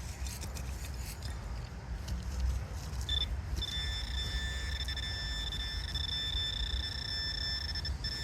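A metal-detecting pinpointer sounds a steady high-pitched tone, starting about three seconds in and holding on: the sign that a metal target is close in the dug hole. Before that come soft scraping and handling knocks from digging.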